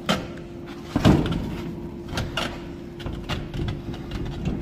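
Heavy thuds of a large tire and wheel being kicked to work it loose from the hub: two hard knocks about a second apart near the start, then a few lighter knocks. A steady hum runs underneath.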